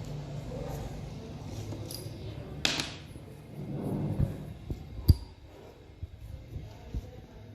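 Handling noises as small parts are worked by hand: a brief rustle about three seconds in, a few light knocks, and one sharp click or tap about five seconds in.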